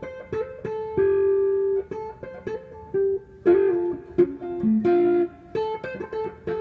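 Stratocaster-style electric guitar playing a fill of single notes and short chord stabs around a D minor shape high on the neck, starting on the 2nd string; several notes glide in pitch, as from slides or hammer-ons.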